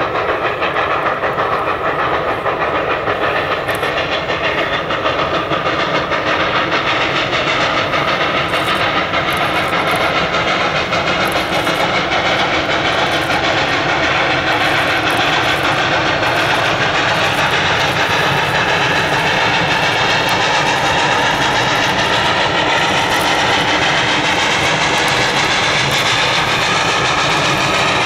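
Baldwin 2-8-0 Consolidation steam locomotive working hard with a freight train, its exhaust and running gear making a loud, continuous din that grows a little louder as it approaches.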